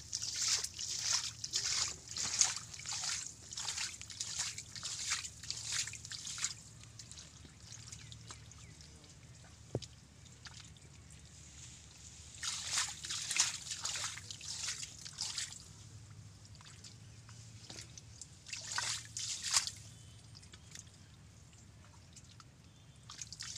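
Hands digging and squelching through wet mud and shallow water while groping for fish, in runs of quick splashes and drips. The splashing is busy for the first six seconds, comes again about halfway through and twice more near the end, with quieter gaps between.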